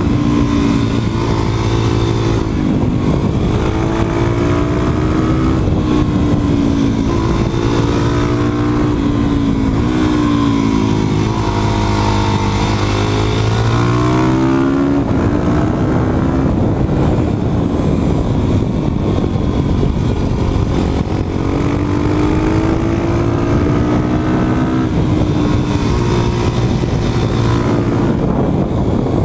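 2013 Yamaha WR450F supermoto's single-cylinder four-stroke engine running under way, its pitch rising and falling with throttle and gear changes, over a steady rush of noise.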